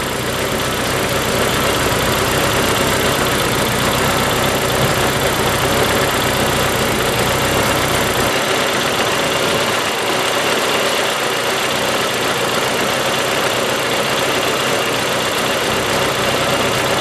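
A car engine idling steadily at close range, with its deep rumble fading about halfway through. The idle holds steady while water is sprayed around the intake, a sign that there is no vacuum leak.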